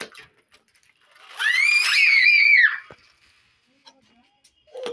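A young child's high-pitched squeal, about a second and a half long, rising, holding and then falling away.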